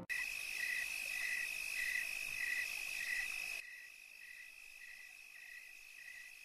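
Crickets chirping: a steady high trill with a regular chirp repeating a little under twice a second. About three and a half seconds in the level drops suddenly and the chirping carries on fainter.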